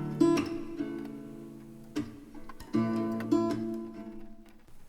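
Background music: a pop song's acoustic guitar playing chords between sung lines, the chords ringing out and fading toward the end.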